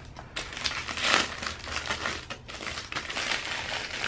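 Clear plastic packaging sleeve crinkling as a phone case is pulled out of it by hand, loudest about a second in.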